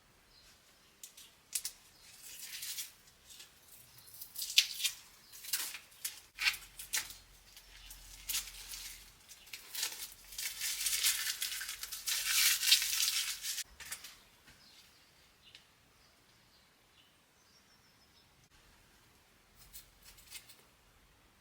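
Irregular scratchy scraping and rubbing strokes, some short and some drawn out, for about thirteen seconds, then it goes quiet with a couple of faint scrapes near the end.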